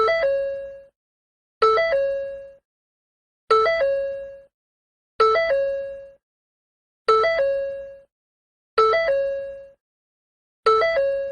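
Ford door chime sounding over and over, about one chime every 1.8 seconds, seven in all. Each is a quick run of a few stepped electronic tones settling onto one tone that rings and fades within about a second.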